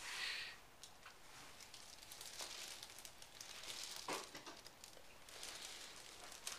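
Faint rustling and crinkling, with a few soft knocks.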